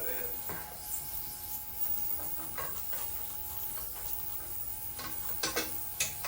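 Scattered light metallic clicks and knocks of hand tools and bolts during work on a tractor, with a few stronger knocks near the end.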